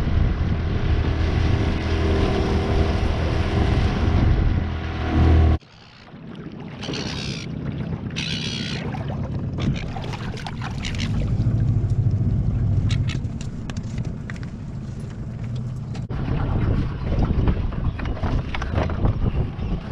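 Outboard motor of a small aluminium tinny running steadily under way, which cuts off abruptly about five and a half seconds in. After that come quieter wind and water noise, short hissy bursts and scattered knocks.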